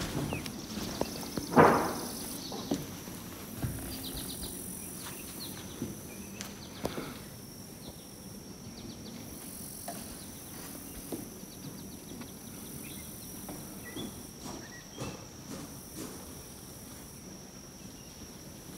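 Footsteps on old wooden barn floorboards: irregular knocks and scuffs as the boards are walked over slowly, with one louder thump about one and a half seconds in. A faint steady high-pitched tone runs underneath.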